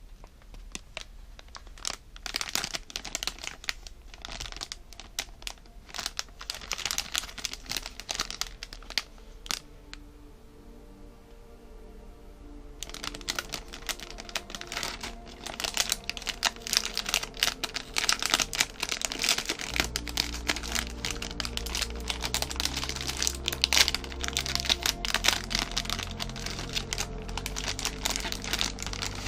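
Packaging crinkling and rustling as it is handled and opened, with a lull of a few seconds about a third of the way in. Background music plays underneath, with a bass line coming in about two-thirds through.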